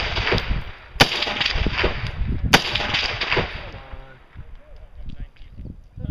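Two rifle shots about a second and a half apart, each trailing off in echo.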